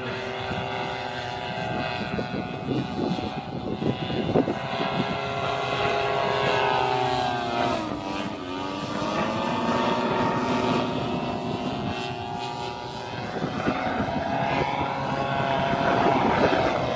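Paramotor with an AC Nitro 200 motor flying past. The engine and propeller drone drops in pitch as it passes about eight seconds in, then rises again as it comes back toward the microphone, with wind buffeting the microphone.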